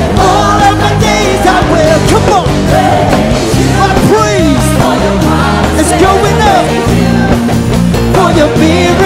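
Live worship band playing, with drums, bass guitar and electric guitar, and singers' voices sliding up and down over the music without clear words.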